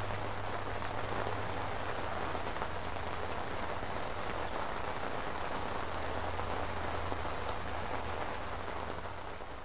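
Steady rain, an even hiss of falling drops, easing off slightly near the end.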